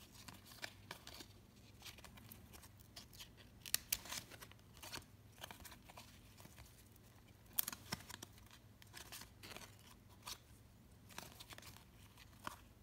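Glossy Upper Deck basketball trading cards being flipped through by hand, each card slid off one stack onto another: soft, irregular flicks and slides of card stock.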